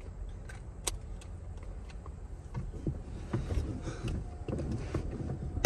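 Low steady rumble inside a parked car, with scattered small clicks, knocks and rustles of handling, then a sudden loud thump at the very end.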